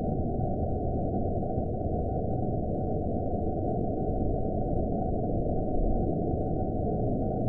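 Dark horror-film ambience: a steady low rumbling noise with no high end, and a faint thin tone held above it.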